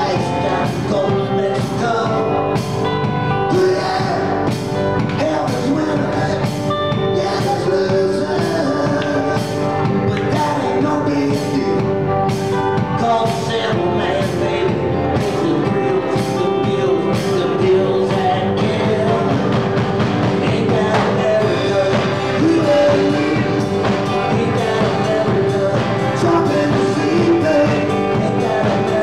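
Live rock and roll band playing: electric guitars and bass over a drum kit keeping a steady beat, with cymbal hits on the beat through the first half.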